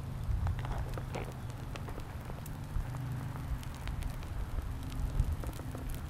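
Wind rumbling on the microphone outdoors, with scattered light crackles and crunches of footsteps on sand and gravel.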